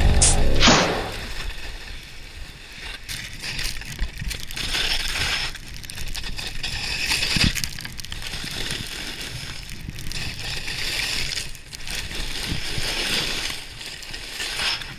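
Skis scraping and hissing through loud, noisy powder snow in a run of turns, the sound swelling with each turn about every one and a half to two seconds, with a few sharper knocks.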